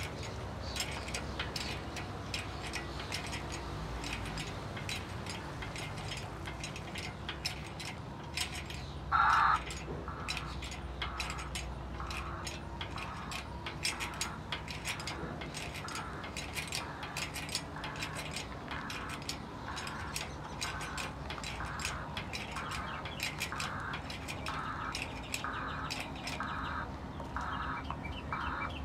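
Hand-pumped hydraulic engine hoist being jacked up under load, squeaking once with each pump stroke, about three squeaks every two seconds, with light metallic clicking throughout. One louder squeak comes about nine seconds in, before the steady pumping rhythm sets in.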